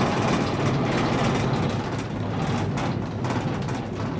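Steady low rumble and hiss inside a moving Ngong Ping 360 gondola cabin as it travels along the cable.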